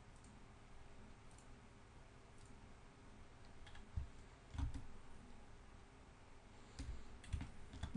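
Faint, scattered clicks from a computer mouse and keyboard, with a couple of soft thumps about four seconds in and a few more clicks near the end, over a faint steady low hum.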